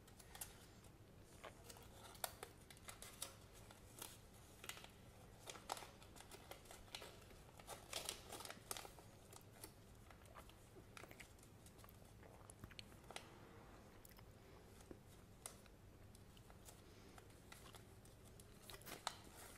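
Paper sticker sheet and folded paper leaflet being handled and unfolded: soft, irregular rustling and crinkling with scattered sharp crackles.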